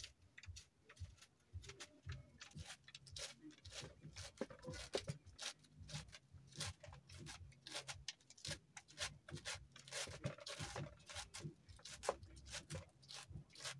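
Kitchen knife slicing through a bunch of leafy greens held in the hand, a rapid, uneven run of short sharp cuts.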